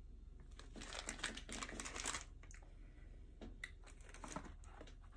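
Snack packaging crinkling as it is handled, a dense crackly rustle for about two seconds near the start, followed by a few scattered light clicks and rustles.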